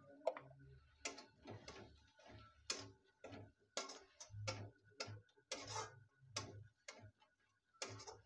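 Spatula scraping and knocking against a steel kadai while a thick onion-tomato masala is stirred, in irregular strokes about twice a second.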